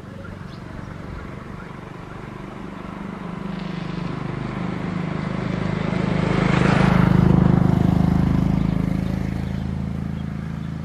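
A motor vehicle passing close by: its engine builds gradually, is loudest about seven seconds in, then fades away.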